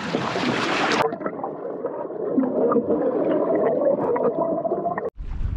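Wind and sea water against a boat for about a second, then a sudden change to muffled underwater sound from a submerged camera: water gurgling and a wavering hum.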